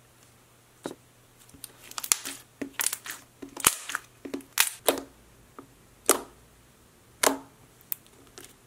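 Stretchy slime being pressed and poked with fingers, making an irregular run of sharp sticky pops and clicks that starts about a second in.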